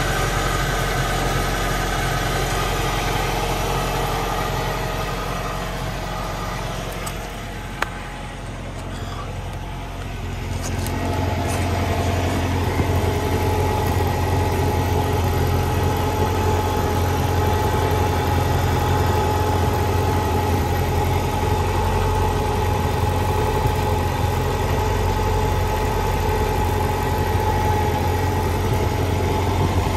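1993 Saab 900 Turbo's engine idling steadily, heard from under the car. It grows quieter for a few seconds near the middle, with one short click, then comes back louder and steady.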